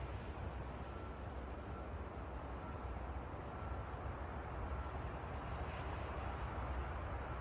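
Wind blowing through trees: a steady rushing of leaves over a low rumble.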